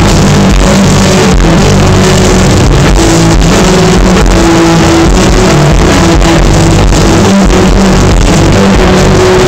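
Live rock band playing loud and steady, recorded on a phone from inside the crowd, so the sound is heavily distorted and clipping, with held bass notes under the wash.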